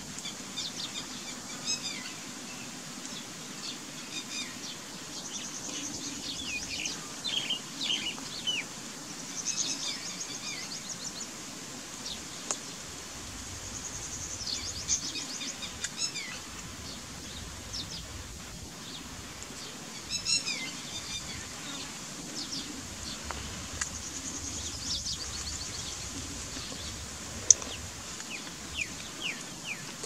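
Red-wattled lapwing calling: runs of short, sharp, falling notes repeated in quick series, coming in bursts with pauses between, over steady outdoor background noise. A single sharp click sounds near the end.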